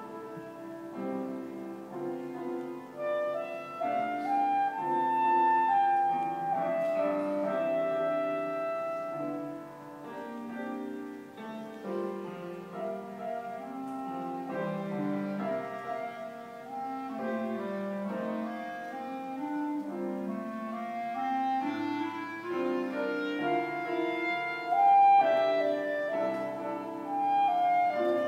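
Clarinet playing a melody of long held notes over piano accompaniment.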